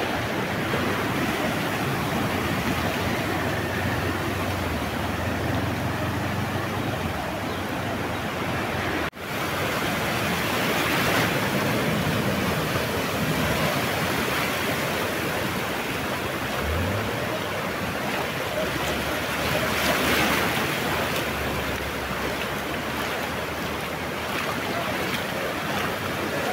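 Floodwater rushing across a paved highway as cars drive through it, with a low engine hum at times. The sound cuts out for an instant about nine seconds in.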